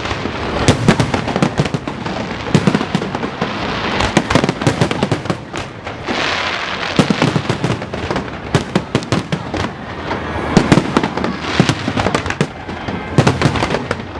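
Aerial fireworks going off in quick succession: booming shell bursts mixed with dense crackling, with a thicker spell of crackle about six seconds in.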